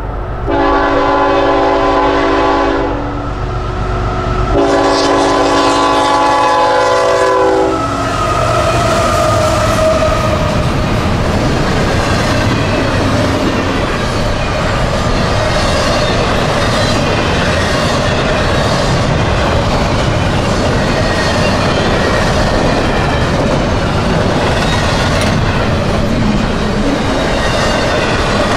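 CSX freight train's locomotive horn sounding two long chord blasts in the first eight seconds, then the train rolling steadily past with rail noise.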